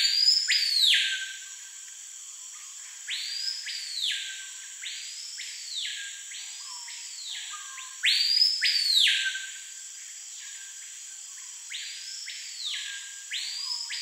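Screaming piha (Lipaugus vociferans) singing: loud ringing whistles that sweep up and then drop, given in groups of two or three every few seconds. Under them runs a steady high insect hum.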